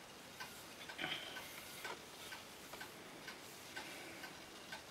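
A clock ticking faintly and evenly, about two ticks a second, with a brief soft rustle of handling about a second in.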